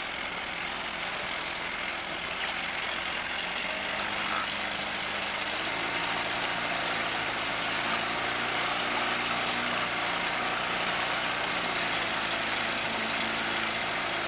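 Tiller-steered outboard motor running steadily as the boat trolls, with water and wind noise over it; it gets a little louder about five seconds in and then holds.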